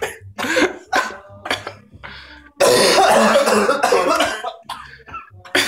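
A man coughing and clearing his throat in short bursts, with a longer, louder spell of coughing about halfway through, from breathing in a mist of SABRE dog pepper spray.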